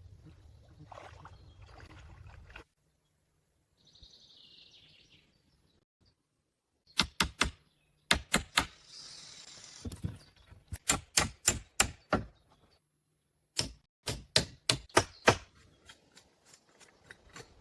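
Quick runs of sharp knocks from a tool striking wood, about two a second at their fastest, broken by pauses, with brief rustling in between.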